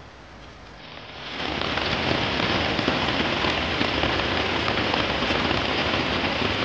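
Heavy rain falling steadily, a dense hiss of drops that swells in over the first second or so.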